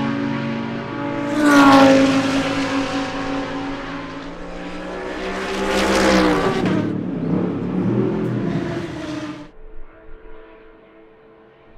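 GT race cars at full speed: two loud pass-bys a few seconds apart, each engine note dropping in pitch as the car goes past. The sound cuts off suddenly near the end, leaving a faint steady hum.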